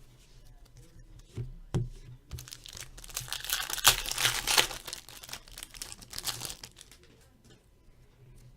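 Crinkling and rustling of hockey trading cards and their pack wrapper being handled, with small clicks throughout and a denser burst of crinkling about three to five seconds in.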